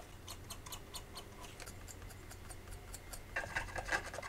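A cotton swab wet with alcohol scrubs the tin contacts of a laptop hard drive's PCB and read-write head connector. It starts as a run of faint scratchy ticks and turns to louder rubbing about three seconds in. The contacts are being cleaned of suspected oxidation.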